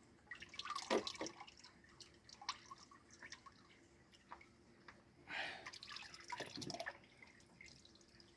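Engine oil dripping under the car, with light handling clicks and clatter in two short bursts, about a second in and again from about five seconds in.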